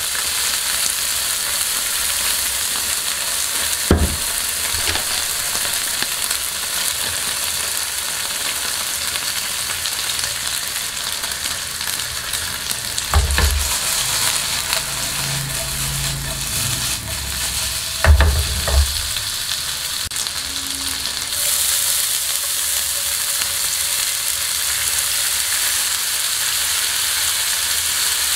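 Thinly sliced beef sizzling as it is stir-fried over high heat in a nonstick wok, a steady hiss that grows louder about three quarters of the way through. A few sharp knocks come now and then.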